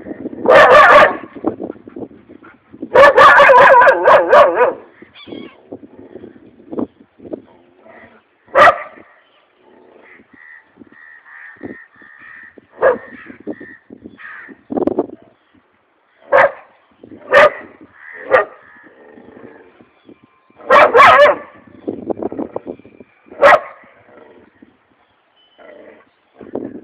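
A dog barking: two long, loud calls in the first few seconds, then single sharp barks every few seconds.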